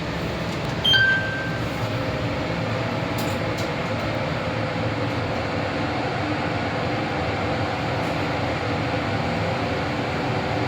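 Passenger lift car travelling down with a steady hum and rumble. A short high beep sounds about a second in.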